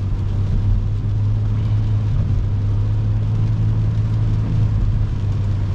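Car driving in heavy rain on a wet road, heard from inside the cabin: a steady low drone of road and tyre noise with a faint even hiss of water spray.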